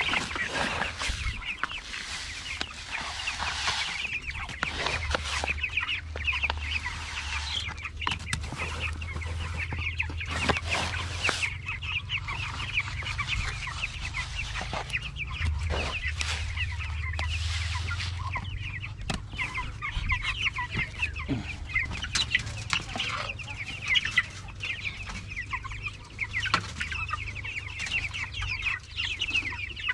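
A flock of native chickens clucking and calling continuously, with a few short knocks now and then.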